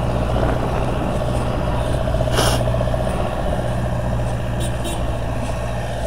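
Vehicle engine running steadily, with one brief sharp noise a little before halfway.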